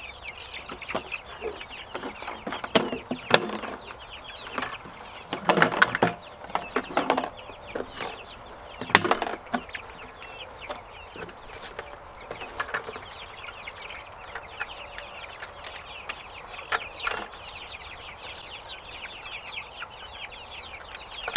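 A plastic bucket waterer being handled: its lid is pressed on, then the bucket is lifted and hung on a hook, giving a handful of sharp plastic clicks and knocks, loudest about three, six and nine seconds in. Faint chirping goes on steadily in the background.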